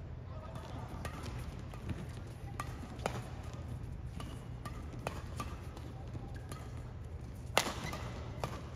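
Badminton rackets striking a shuttlecock in a doubles rally: a series of sharp cracks, roughly half a second to a second apart, the loudest near the end, over the steady low hum of a large hall.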